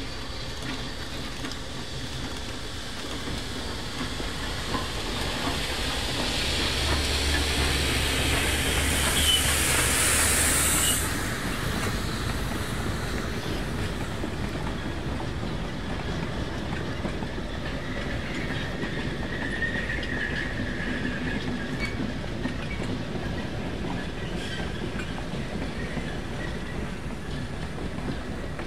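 Narrow-gauge K-28 steam locomotive pulling away, its hissing steam building and then stopping abruptly after about ten seconds. Freight cars follow, rolling past with a clickety-clack of wheels over the rail joints and a faint wheel squeal midway.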